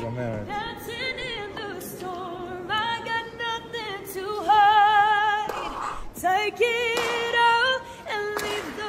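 A woman's solo voice singing a cappella, holding long notes with vibrato.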